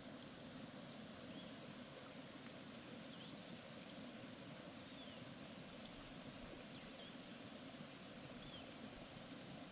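Quiet pond-side ambience: a faint, steady background hiss with a few faint, short, high bird chirps scattered through.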